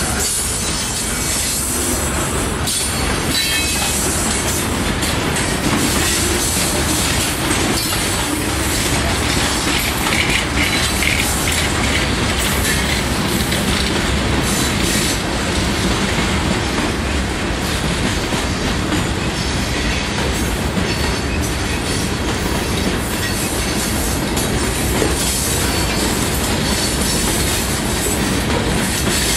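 Freight cars rolling past on jointed rail: a steady, loud rumble of wheels on rail with the clickety-clack of wheels crossing the rail joints, and now and then a faint wheel squeal.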